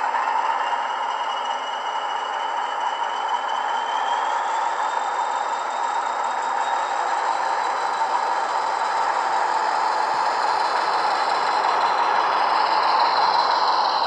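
Bachmann Class 40 model diesel locomotive with an ESU LokSound decoder playing English Electric engine sound through two 27mm speakers while it runs. A high turbocharger whistle rises in pitch over the first few seconds and then holds over the engine note, with a light clatter. The sound is thin with no deep bass and grows a little louder near the end as the model passes closest.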